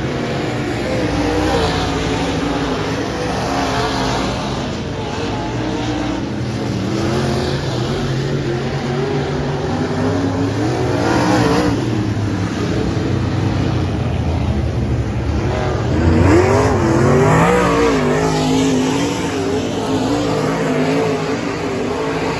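Dirt-track race car engines running laps on a clay oval, the pitch rising and falling again and again as the cars get on and off the throttle through the turns. The loudest moment is about two-thirds of the way through, where the engine note climbs as a car accelerates.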